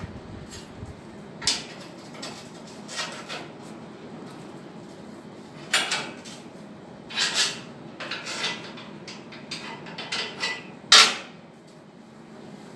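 Irregular knocks and clanks of steel parts and tools being handled, about a dozen separate hits with the loudest near the end, over a low steady background hum.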